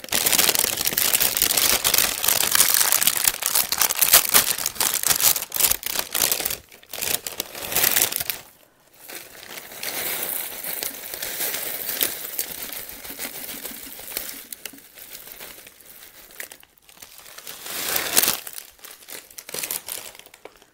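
Clear plastic bag of crunchy cereal crinkling loudly as it is handled and cereal is poured out of it into a bowl, the dry pieces rattling in. It comes in three spells, with short pauses about nine and seventeen seconds in.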